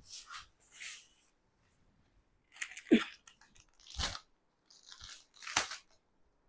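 Cotton saree cloth rustling and clear plastic saree packets crinkling as they are handled, in short separate bursts, with one sharper knock about three seconds in.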